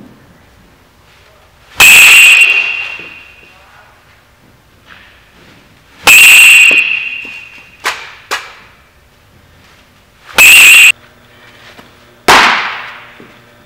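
Metal baseball bat hitting balls three times, about four seconds apart, each a loud, sharp, ringing ping. Two lighter knocks follow the second hit. Near the end a ball smacks into a catcher's mitt.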